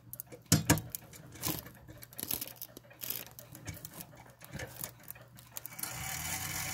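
Scattered light clicks and knocks, irregularly spaced, close to the brass movement of an Ansonia pendulum clock. A low hum rises near the end.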